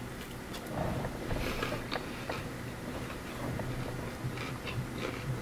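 Chewing a crispy breaded fried chicken finger, a bite at the start and faint crunching clicks of the breading scattered through.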